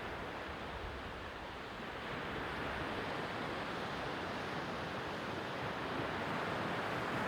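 Sea waves washing on the shore: a steady surf hiss that swells a little after about two seconds.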